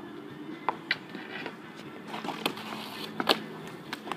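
Roller hockey stick and shot on an asphalt driveway: a few sharp clacks, the loudest a little over three seconds in.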